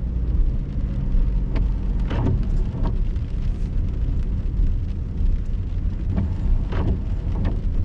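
Steady low rumble of a car driving slowly on wet pavement, heard from inside the cabin, with a few brief higher sounds over it about two seconds in and again near the end.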